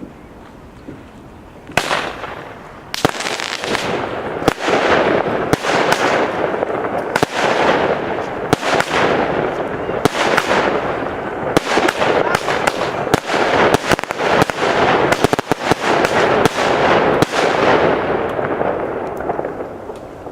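Beach Bum consumer fireworks cake firing. Sharp shots come about every second and a half from about two seconds in, with a constant crackling sizzle between them that dies away near the end.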